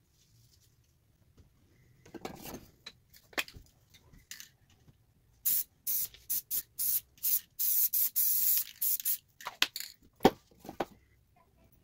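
Aerosol spray paint can sprayed in a quick run of short hisses, then one longer hiss of about a second. A few sharp knocks and clicks of handling come before and after, the loudest a little after the spraying stops.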